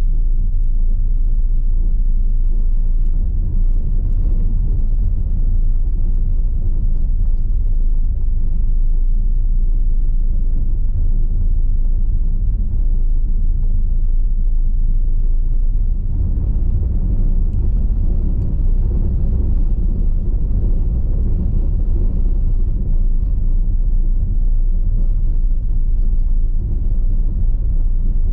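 Car driving slowly over a cobblestone street: a steady low road rumble from the tyres and running gear.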